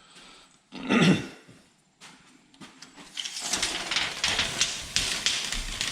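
Handling noise while measuring and marking a length of crown molding: a single knock about a second in, then scratchy scraping and rustling with small clicks through the second half.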